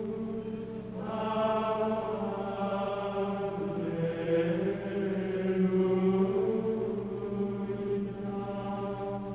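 Voices chanting slowly in long, drawn-out notes over a low steady drone.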